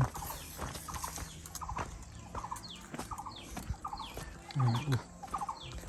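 Chickens clucking: a string of short clucks every half second or so, mixed with a few quick high chirps.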